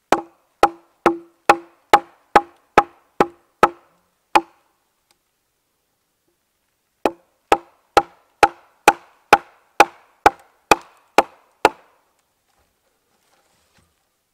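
A wooden mallet strikes the poll of a steel axe, driving it into the end of a wet poplar log to split it. There are two runs of steady blows, about two a second, with a short pause between, and each blow gives a sharp knock with a brief ring.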